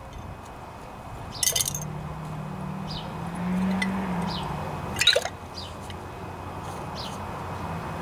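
Small metal carburetor parts clinking against a glass jar as they are dropped into carburetor cleaner. There are two sharper clinks, about a second and a half in and about five seconds in, with a few light ticks between them. A low hum sits underneath.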